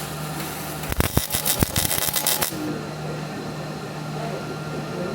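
MIG welder arc crackling and spitting in a short burst of about two and a half seconds, then cutting off, over the steady hum of shop ventilation. The instructor takes the wire feed to be running a little fast.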